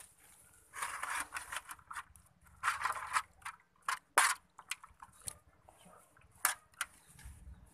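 Metal spoon stirring and pressing wet sliced raw beef in an aluminium colander: irregular scraping, with a few sharp clinks of spoon on metal, the loudest about four seconds in.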